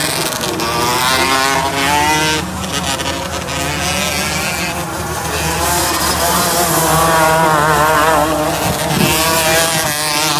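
Several 125cc outlaw karts racing on a dirt oval, their engines running hard together with the pitch rising and falling as they accelerate, lift for the turns and pass by.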